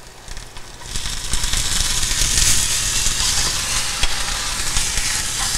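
Hot oil sizzling in a small nonstick skillet as a tadka of mustard seeds, chilies, curry leaves and minced ginger fries and is stirred with a silicone spatula. The sizzle swells about a second in and then holds steady.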